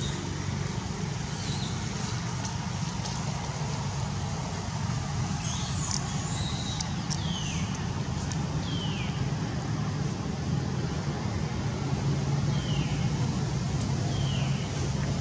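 Steady low rumble of a motor vehicle engine, with several short high-pitched calls that fall in pitch over its second half.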